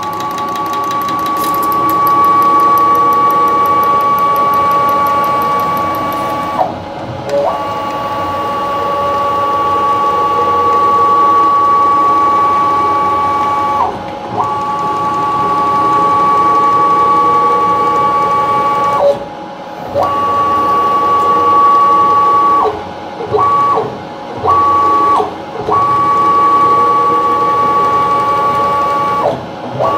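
CNC stepper motor driving the mill table's ballscrew through a jaw-type plum coupling with a steady high whine, stopping briefly between moves. A clicking runs with it, from the coupling's hard plastic spider rubbing as it shifts back and forth.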